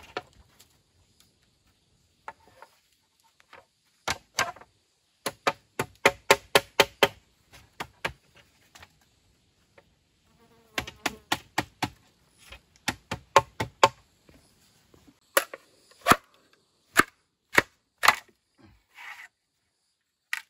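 Machete chopping into a green bamboo pole: sharp strikes in quick runs of about three a second, then slower single blows about half a second apart near the end.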